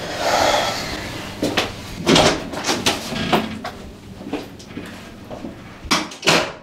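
Door banging and knocking in a small room, with a rustling swell at the start: a dozen or so sharp knocks, the loudest two close together near the end.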